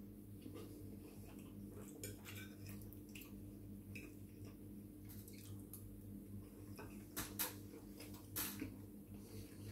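Quiet eating sounds: chewing, and a fork scraping and tapping on a plate in a few short clicks, the strongest between about seven and eight and a half seconds in, over a steady low hum.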